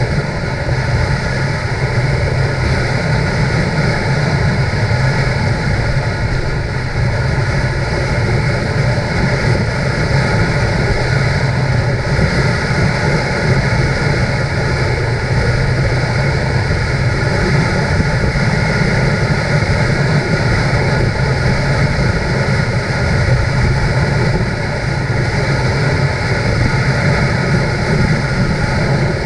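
Motorcycle engine running steadily at cruising speed, mixed with wind and road noise as heard from the rider's position on the moving bike.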